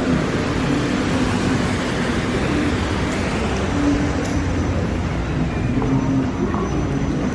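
Steady, loud rumbling hiss of wind buffeting a handheld camera's microphone outdoors, gusting slightly but never dropping away.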